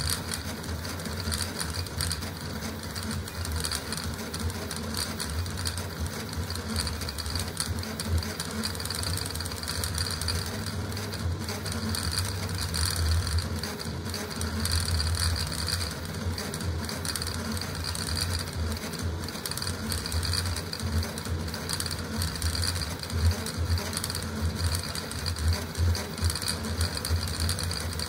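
Custom CoreXY 3D printer printing at high speed, about 600 mm/s with 80,000 mm/s² acceleration: its stepper motors and belts buzz and whir in a quick, ever-shifting pattern as the printhead darts back and forth.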